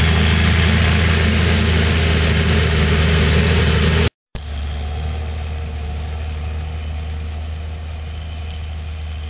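Fendt 930 Vario tractor's six-cylinder diesel engine running steadily under heavy load while pulling an eight-furrow plough through wet soil. The sound cuts out for a moment about four seconds in, then carries on a little quieter.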